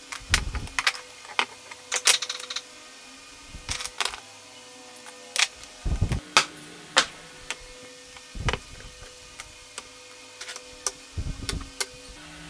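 Irregular clicks and knocks of aluminium linear-bearing blocks and steel rods being handled and set down on a wooden workbench as the parts are fitted together, over a faint steady hum.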